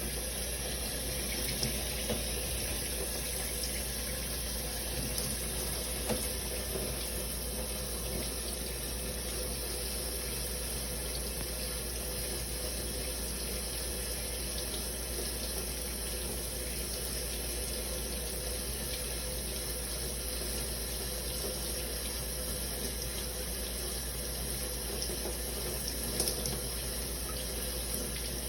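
Shower water running steadily, a constant spray of falling water with a few faint brief splashes or taps.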